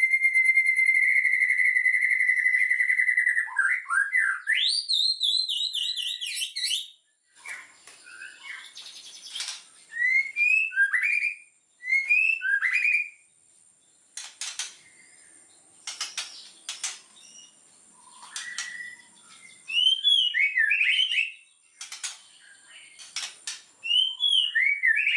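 White-rumped shama (murai batu) singing: a long steady whistle for about the first three and a half seconds, then fast rising and falling notes, then short upslurred phrases mixed with sharp clicks.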